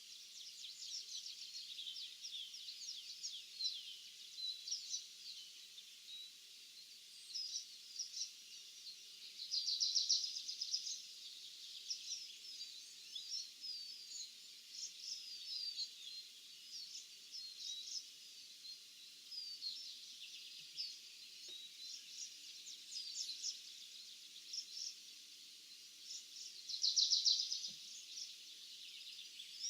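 Several songbirds chirping and singing in a summer field, many short calls overlapping, with a denser, louder burst of song about ten seconds in and again near the end.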